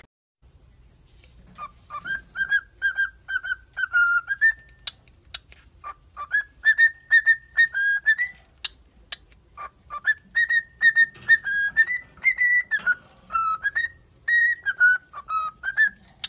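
Cockatiel whistling a tune in three phrases of short, quick notes that step up and down a little in pitch, with short pauses between phrases. A few sharp clicks fall in the gaps.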